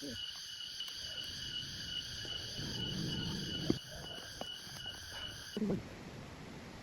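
A steady chorus of forest insects, several high shrill tones held together, that stops abruptly about five and a half seconds in. Low rustling runs underneath, with a sharp knock midway.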